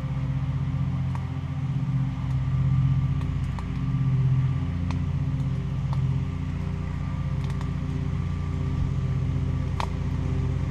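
A steady low mechanical drone, like a motor or engine running, with a humming pitch that swells and eases slightly. A few faint sharp clicks sound over it.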